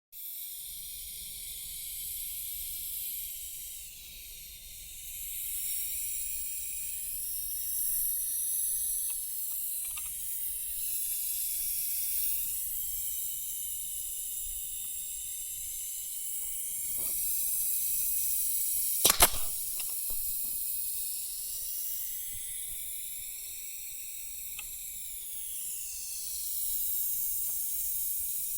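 Steady hiss of compressed air from a pneumatic finish nailer, with one sharp double crack about 19 seconds in as a nail is fired.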